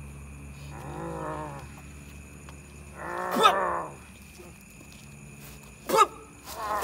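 Drawn-out, wordless human cries, several in a row: a long low call about a second in, a louder one around three seconds in that slides up and down in pitch, and two short sharp cries near the end.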